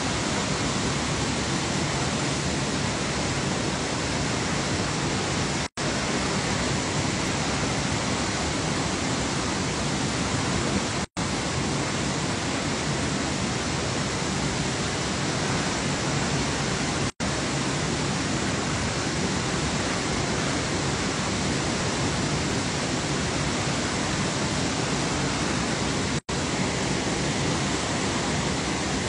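Water overflowing a full dam's concrete spillway, a steady rush of falling water. It is broken four times by a very brief drop to silence.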